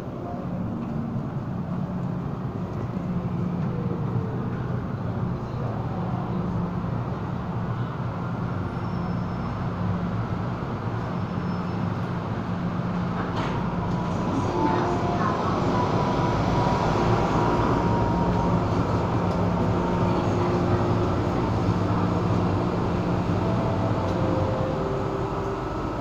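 MTR M-Train electric multiple unit arriving at an underground platform and standing in the station, with a steady low hum throughout. There is a sharp knock about halfway through, and faint steady tones and a rise in loudness in the second half.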